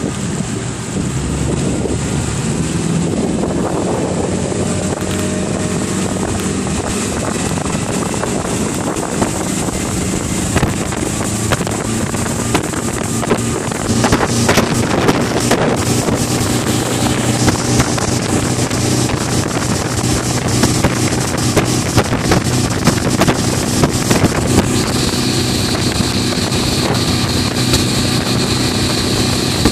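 Motorboat engine running steadily while towing a banana boat, with wind buffeting the microphone and water rushing in the wake. It gets louder about halfway through.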